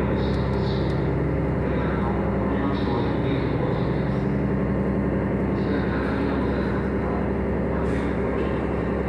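Sightseeing ship's engines running steadily under way, a constant low drone with an even hum, heard aboard the vessel.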